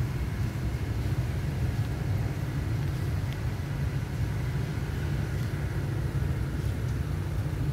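Steady low rumble of outdoor background noise, with no distinct events on top.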